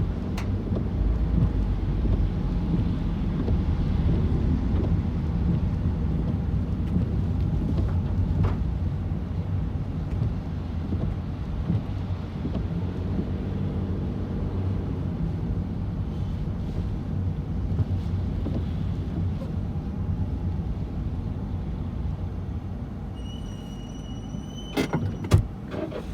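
Steady low rumble of a motor vehicle driving. Near the end comes a high electronic tone lasting about two seconds, followed by two sharp clicks.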